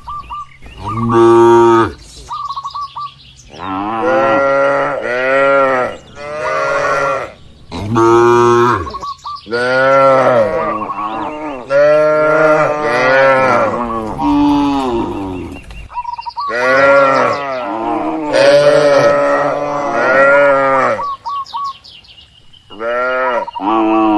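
A herd of cattle mooing: long calls one after another, often several animals overlapping, with short pauses between bouts.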